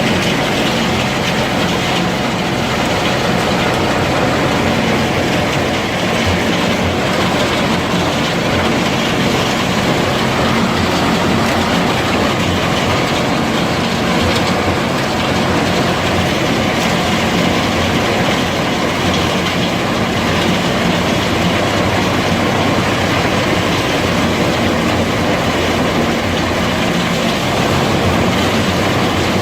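Heavy wood chipper running steadily: a continuous engine drone under dense mechanical noise, with no break.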